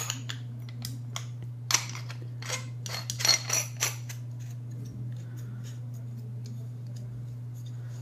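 Metal body of a BM-800 condenser microphone being handled and screwed back onto its grille head: a run of small metallic clicks and scrapes in the first four seconds, then sparser handling noises, over a steady low hum.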